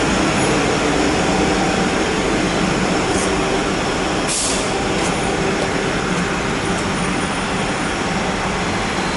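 C751B metro train standing at the platform, its onboard equipment giving a steady hum over the general noise, with a short hiss about four seconds in.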